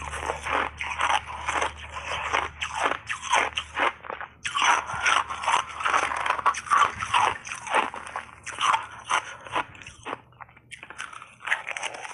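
Refrozen ice chunks coated in matcha and milk powder being crunched and chewed, a rapid run of crisp cracks close to the microphones, with short pauses about four seconds in and around ten seconds.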